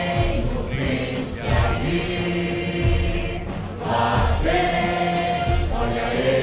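Choir singing long held chords over music, in several phrases.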